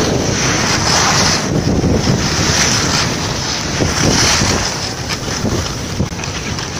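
Air rushing over the microphone of a moving camera together with a steady hiss and scrape of edges sliding over snow, as a rider travels down a ski slope. It eases a little over the last couple of seconds.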